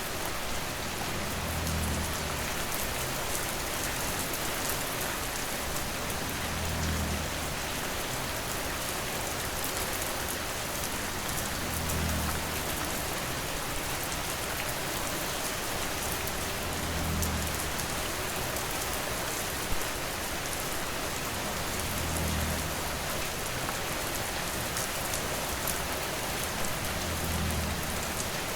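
Steady rain falling on surfaces, an even hiss of many drops, with a soft low swell about every five seconds and one sharper drop sound about twenty seconds in.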